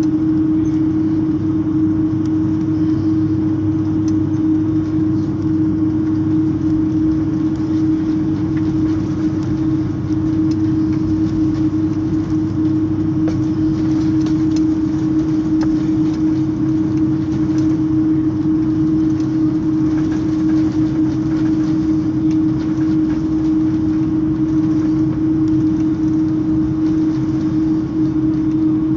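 Cabin noise of an Airbus A330 taxiing: a steady, loud drone from the engines and the cabin air system, with one constant humming tone over it.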